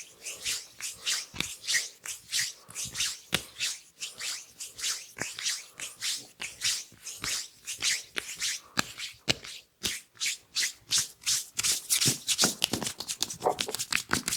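Hands rubbing oiled skin in a neck massage: quick repeated swishing strokes, about two or three a second.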